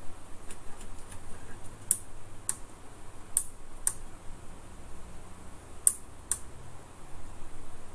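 Keys of a Commodore SR-36 calculator's keypad being pressed: about six sharp clicks, mostly in pairs about half a second apart.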